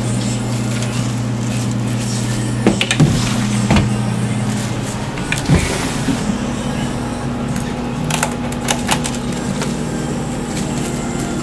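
Steady low mechanical hum with a few scattered short clicks and scrapes as a metal spatula shapes gelato petals onto a cone.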